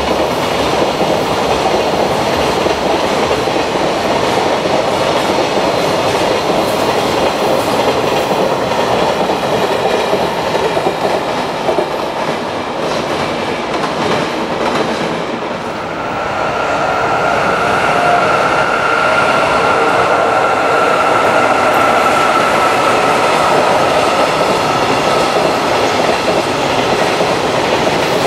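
Freight trains passing over slab track, with a continuous rumble and clatter of wheels on the rail joints. The sound eases a little about halfway through as a second freight train comes in, and a steady high-pitched tone then joins and holds to the end.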